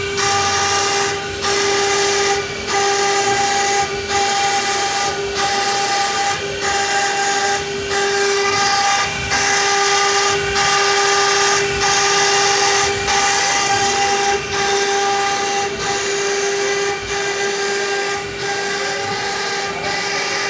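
Micron Lasers CNC stone router cutting stone: the spindle runs with a steady high whine over a loud grinding hiss. The hiss breaks off briefly about every second and a half.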